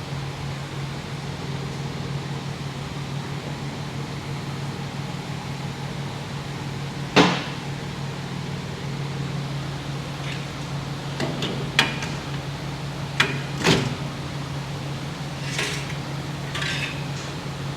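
A steady low machine hum with a handful of sharp metallic knocks and clanks from tire-service work, the loudest a little past a third of the way in, and a few short hissing noises near the end.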